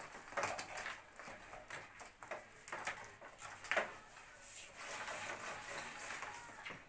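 Flexible PVC electrical conduit being handled and pushed into place against a brick wall: scattered light knocks and taps, with a soft scraping rustle in the second half.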